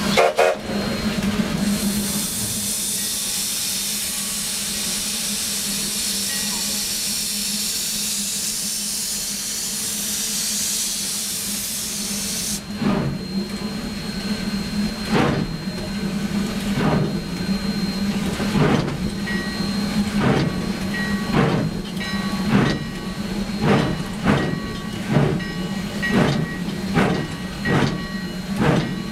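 Sierra Railway No. 3, a 4-6-0 ten-wheeler steam locomotive, heard from the cab. A loud steam hiss runs for about the first twelve seconds and stops suddenly. Then the exhaust chuffs at the stack begin, slow at first and quickening steadily as the engine gets back up to speed on the grade, over a steady low hum.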